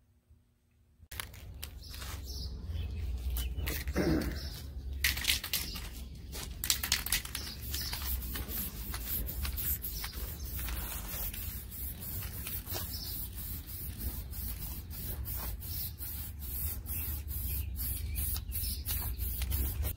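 Aerosol spray-paint can hissing in many short bursts as engine paint is sprayed onto a big-block engine, over a steady low rumble.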